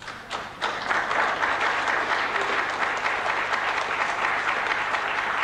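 Audience applauding, beginning with a few separate claps and filling out within the first second into steady applause.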